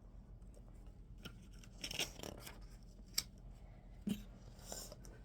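Plastic Lego bricks being handled and pressed together: a few sharp clicks and short rustles.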